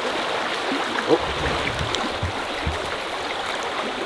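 Fast-flowing river current rushing over a riffle, a steady even wash, with a few soft low thumps about a second to three seconds in.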